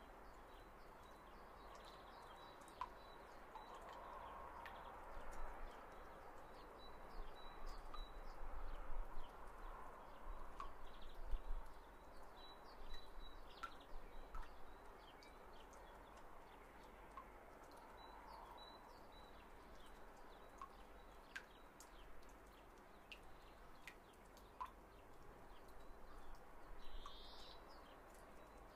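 Faint background noise with a low hum, scattered soft clicks and brief high chirps.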